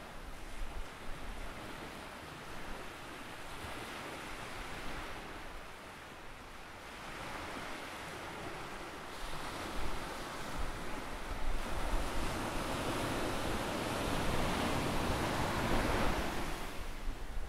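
Ocean surf breaking and washing on the beach: a steady wash that eases off about a third of the way in, builds through the second half to its loudest near the end, then drops away.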